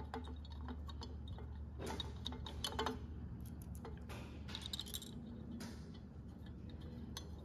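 Scattered light metallic clicks and taps as the parts of a booster-installation jig, a bolt and the jig bar, are handled and fitted by hand onto an aluminium Holley 4150 carburettor body, over a steady low hum. The louder taps come about two and three seconds in and again around four and a half to five seconds.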